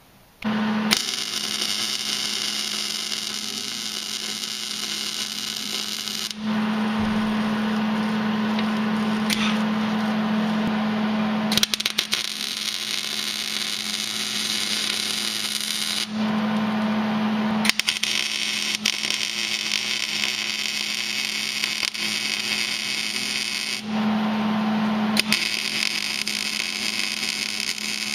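Arc welding a bead onto the steel reinforcement plate on the frame: a steady crackling hiss, with a steady low hum coming to the fore in a few stretches.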